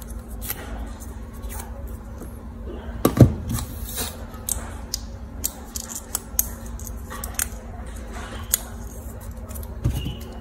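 Small scissors snipping a plastic drinking straw: a scattered run of short, sharp clicks, with a louder knock about three seconds in and another near the end.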